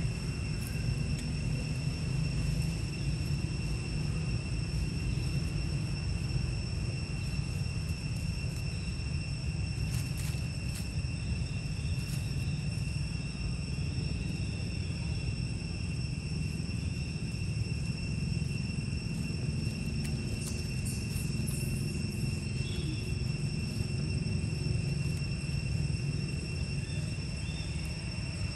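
A steady, high, unbroken insect drone over a low continuous rumble, with a few faint clicks near the middle.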